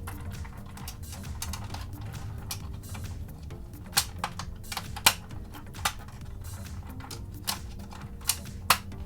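Sharp plastic clicks and snaps, about seven of them in the second half, loudest about five seconds in, as the parts of a M.A.S.K. Switchblade toy helicopter are handled and pushed into place during its transformation, over faint background music.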